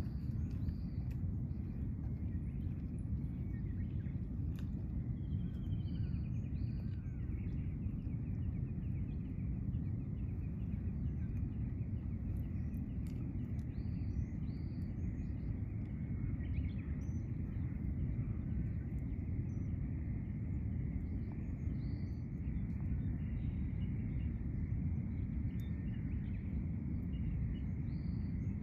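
Outdoor background: a steady low noise, a faint steady high hum, and small birds giving short high chirps scattered throughout.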